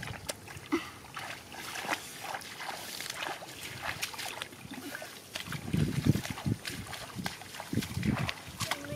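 Tall grass rustling and crackling while hands search through wet, grassy rice-field ground, with light splashing and sloshing of shallow water and a few dull thumps in the second half.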